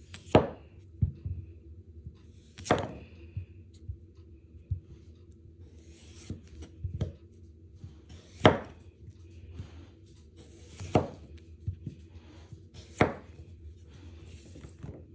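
Goko Hamono honesuki boning knife slicing through a small red potato, the blade knocking on a wooden cutting board at the end of each cut: five sharp knocks a couple of seconds apart, with softer taps and knife-through-potato sounds between them.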